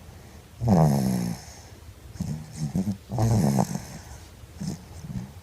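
A baby snoring loudly. The snores come one after another every second or two, and each one falls in pitch.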